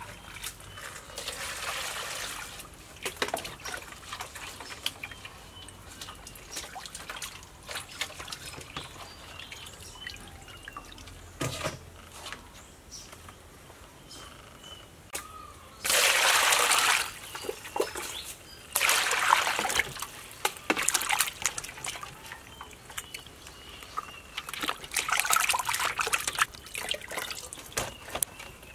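Water splashing and sloshing in a steel basin as a raw fish is washed by hand, in several short spells with clicks and knocks between them.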